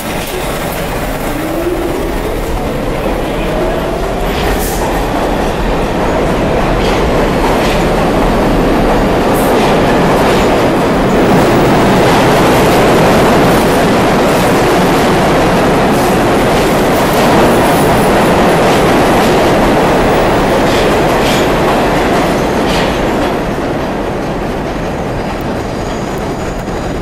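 R46 subway train pulling out of the station. Its traction motors whine, rising in pitch over the first few seconds, then the cars pass with a loud, steady rumble and the clatter of wheels over rail joints. The sound fades as the train goes into the tunnel near the end.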